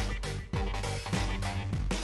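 Background music with a steady beat, a little under two beats a second.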